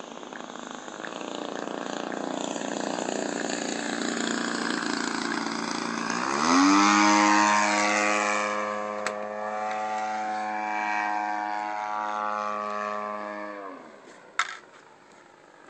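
Radio-controlled model airplane's engine running at high throttle in flight. The sound swells over the first few seconds, then a steady high tone sets in sharply about six seconds in, holds, and drops in pitch and fades near the end.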